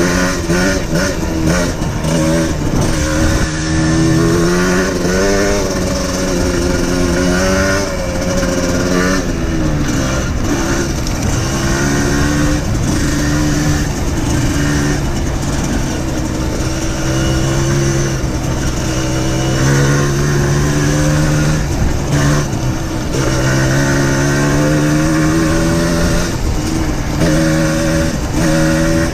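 Trail motorcycle engine running under way along a rough dirt lane. Its note climbs and drops again and again as the throttle is opened and eased.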